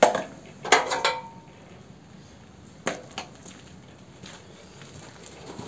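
A few short metallic clicks and knocks, two near the start and two more about three seconds in, as a small petrol engine is handled before a start attempt; the engine is not running.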